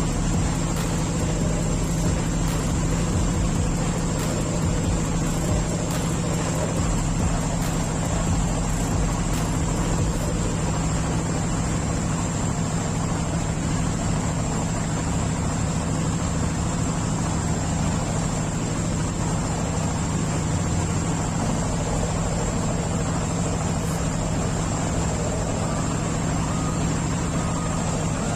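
A pilot boat's engines running steadily under way: an even low hum with a hiss over it that does not change.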